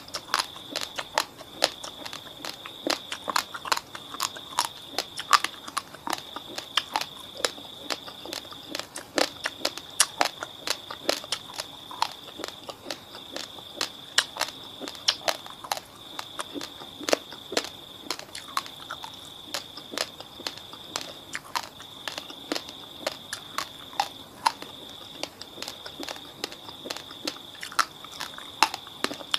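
Crunching and chewing of raw, fridge-chilled basmati rice: many sharp, irregular cracks as the dry grains are bitten and ground between the teeth. A steady high tone runs behind it, broken off every second or two.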